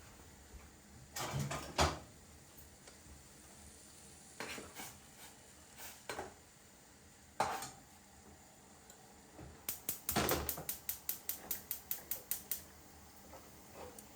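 Dishes and utensils knocking and clinking: a few separate knocks, then a quick, even run of about fifteen taps, some five a second, about ten seconds in.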